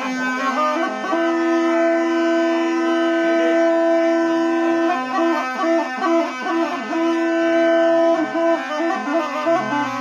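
A wind instrument plays a melody over a steady drone. It holds long notes for a few seconds, then moves in quicker short notes.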